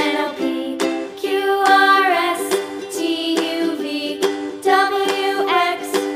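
Background music: a plucked-string instrument, ukulele-like, strums a steady rhythm under a lilting melody.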